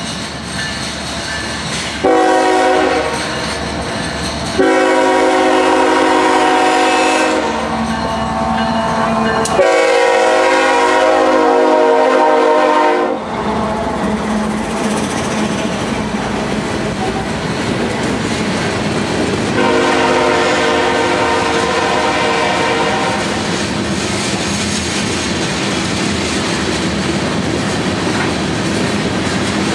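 Canadian Pacific freight locomotive's air horn sounding in four long blasts, the first three almost back to back and the last after the locomotive has gone by. Under the horn, the locomotive and a long string of covered hopper cars rumble and clatter steadily past on the rails.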